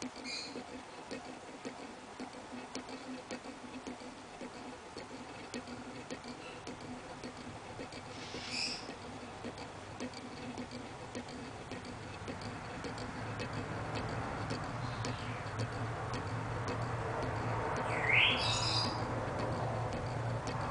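Three-piece fermentation airlock ticking steadily as CO2 from the actively fermenting IPA bubbles through the water and rattles the cap. A few short chirps come through, one rising near the end, and a low hum grows louder over the second half.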